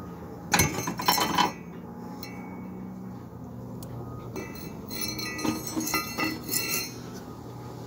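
Metal lug wrench clinking as it is worked on the oil drain plug under an ATV: a loud cluster of sharp metallic clinks about half a second in, then a run of lighter ringing clinks in the second half.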